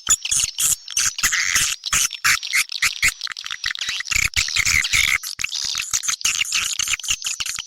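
A recording of edible-nest swiftlets calling: a dense, continuous chatter of fast, high twittering chirps and clicks. It is the kind of call recording that is played to lure swiftlets into a nesting house.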